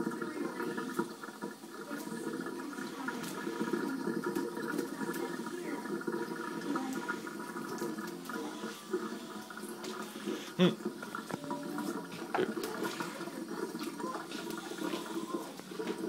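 Indian ringneck parakeet bathing in a pan of water, its wings beating and splashing the water continuously. There is a single sharp knock about ten and a half seconds in.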